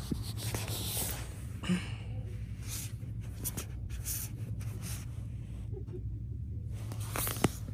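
Rustling and brushing of packaged plush throw blankets being handled and shifted on a store shelf, over a steady low hum. There is a sharp click near the end.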